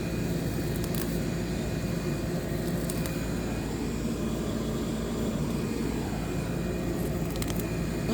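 Steady low mechanical drone in the background, with a few light snaps and rustles from grass being pulled up by hand.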